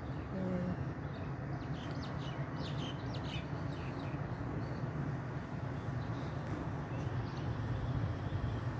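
Birds chirping in short, high calls, bunched in the first half, over a steady low rumble of ambient background noise.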